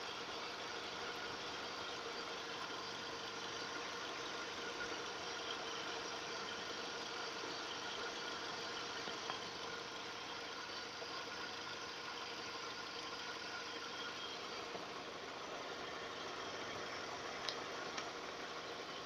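Audi A4 B7's 1.6-litre 75 kW engine idling steadily with a faint steady tone over the running noise, a sound the owner is unsure is normal. Two short clicks come near the end.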